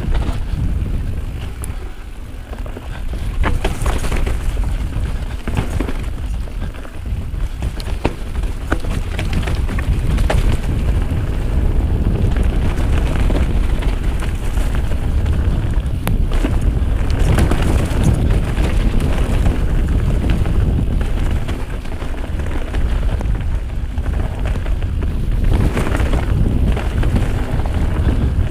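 Wind buffeting the camera microphone during a fast mountain-bike descent, over the rumble of knobby tyres rolling on a dirt trail. Frequent knocks and clatters come from the bike as it runs over roots and rocks.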